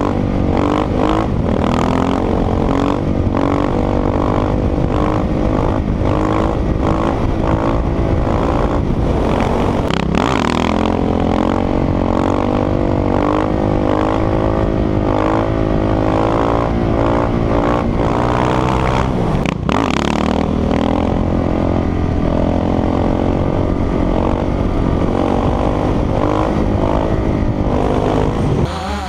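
Husqvarna 701 supermoto's single-cylinder engine through an Akrapovic exhaust, revving up and down as the bike is ridden, its pitch rising and falling again and again with a few brief breaks.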